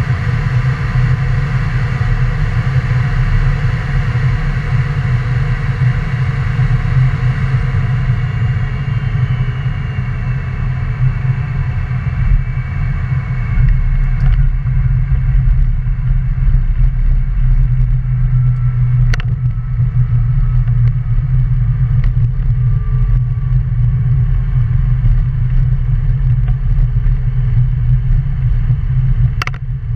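Cessna Citation Jet's twin turbofan engines running with a steady low rumble, their high whine sliding down in pitch and fading over the first dozen seconds as power comes off. A few sharp clicks sound later on.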